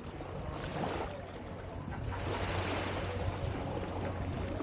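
Small waves washing onto a sandy beach, a rushing hiss that swells about two seconds in.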